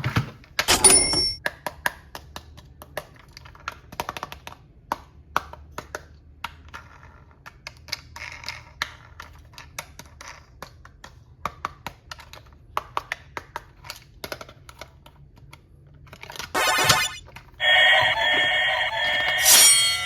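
Irregular light clicks and taps of plastic toys being handled, then, about three seconds before the end, a loud electronic toy sound effect starts: a steady, alarm-like tone of several pitches.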